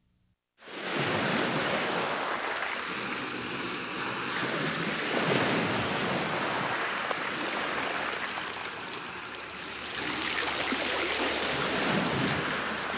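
Ocean surf: waves washing in, swelling and ebbing in slow surges a few seconds apart, starting about half a second in.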